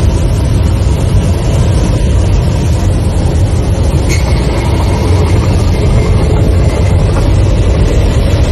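Loud, steady rushing noise of air and engines inside a Boeing 737 MAX 9 airliner cabin in flight with a hole blown open in the fuselage.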